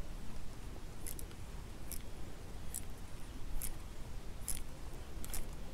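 Fishing line snapping as a spinning rod is jerked in a steady rhythm during a tenya jerk-and-wind retrieve. There are six short, crisp snaps, a little under a second apart.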